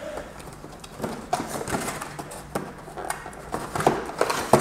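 Hands rummaging in a cardboard packing box, with irregular light knocks, taps and rustles of cardboard and packed parts.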